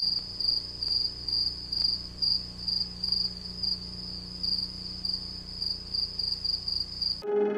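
Crickets chirping in short, even pulses, about two to three a second, over a steady low hum. The sound cuts off suddenly just before the end as music starts.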